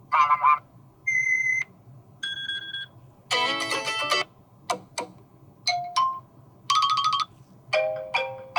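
iPhone alarm tones previewed one after another: about eight short snippets of different chimes and melodies, each lasting under a second and cut off before the next begins, with a repeating melodic figure starting near the end.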